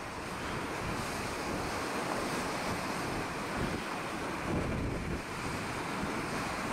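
Wind buffeting the microphone over a rough sea, with a steady rush of waves breaking.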